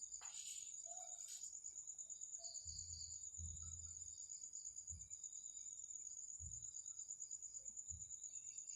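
Insects trilling steadily at a high pitch, a continuous cricket-like chirr, with a few soft low thumps around the middle.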